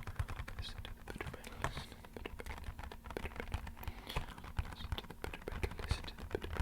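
Rapid, uneven tapping on an empty box, many light taps a second that run together into a pattering like rainfall.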